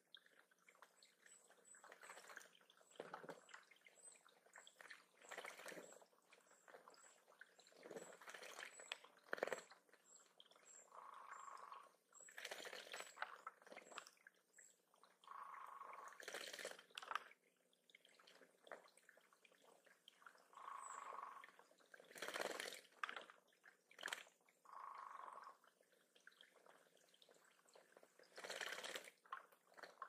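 A small songbird bathing in a shallow pond, with bouts of splashing and wing-fluttering in the water every couple of seconds.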